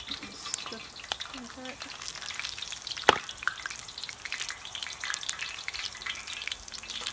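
Battered foraged leaves and flowers sizzling and crackling in hot oil in a pan over a campfire, with a steady spatter of small pops and one louder sharp crack about three seconds in.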